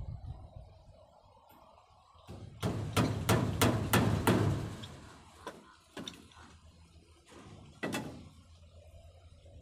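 Hammering on the rabbit pen's wooden frame. A quick run of about seven blows, some three a second, is followed by a few scattered single knocks.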